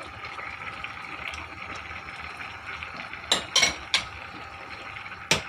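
Metal utensils clinking against a cooking pot: three sharp clinks in quick succession a little past halfway and one more near the end, over a steady low hiss.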